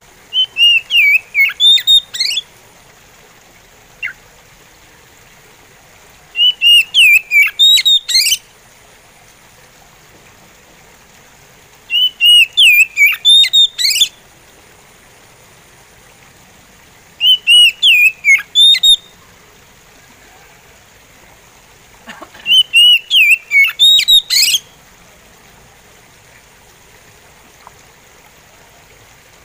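Oriental magpie robin singing in slow, spaced phrases: five bursts of about two seconds each, roughly five seconds apart, each a quick run of high notes sliding up and down, with one lone short note between the first and second.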